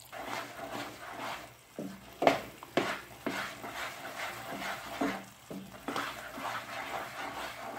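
Wooden spatula stirring a pan of thick, sticky wheat halwa: irregular scraping strokes with short knocks against the pan, the sharpest a little over two seconds in. The halwa has begun to thicken after about an hour of cooking.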